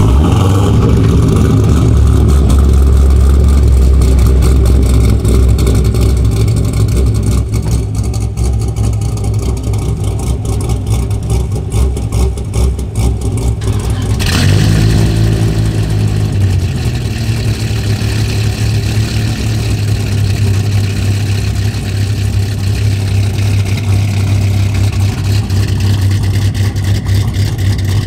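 A cammed 1997 Dodge Viper GTS 8.0-litre V10 idling, heard at its rear exhaust: a steady, loud low rumble with an uneven, lopey beat from the aftermarket camshaft.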